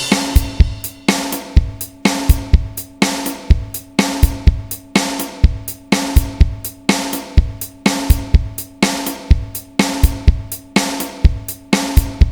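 Background music: a steady drum-kit beat with bass drum, snare and hi-hat, about two hits a second, over a held low note.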